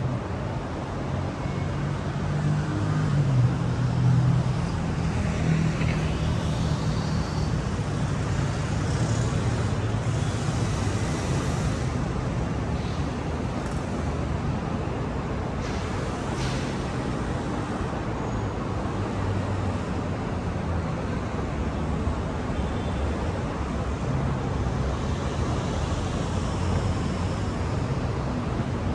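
City street traffic: cars and other vehicles passing with a steady rumble of engines and tyre noise. It swells as a vehicle passes close about three to five seconds in.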